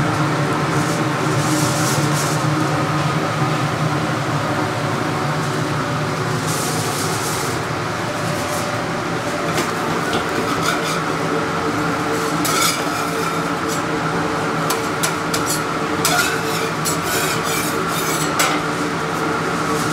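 Metal spatula scraping and clicking on a hot dosa griddle as a filled dosa is worked and rolled, with light frying sizzle, over a steady kitchen hum. The clicks and scrapes come thicker from about halfway through.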